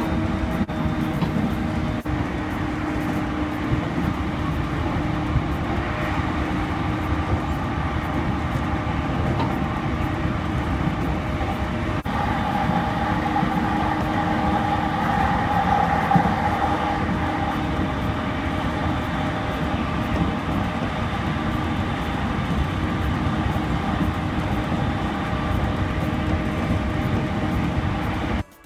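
E231-series electric commuter train running at high speed, heard inside a passenger car: steady rumble of wheels on rail with several steady tones. In the middle a whine grows louder and then fades again. The uploader takes this as an abnormal noise at high speed.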